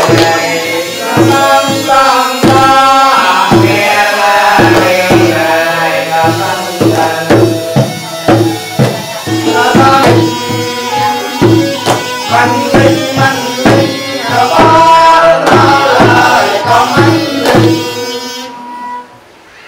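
Traditional music: pitched melody instruments over a quick, busy hand-drum beat. The music fades away near the end.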